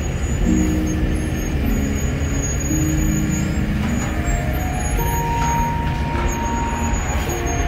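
Diesel engines of heavy trucks running steadily as they drive slowly past in a line, a concrete mixer truck close by and then a box truck, with a deep, even rumble.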